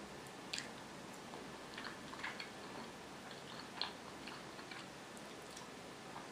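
Crispy fried potatoes handled and eaten close to the microphone. A handful of sharp crackling clicks, the loudest about half a second in and near four seconds, over a faint steady hiss.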